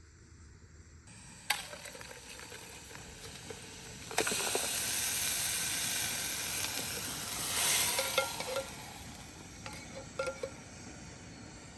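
Food frying in a hot pan: a click, then about four seconds in a loud sizzle starts suddenly and dies down after about four seconds into quieter sizzling with a few pops.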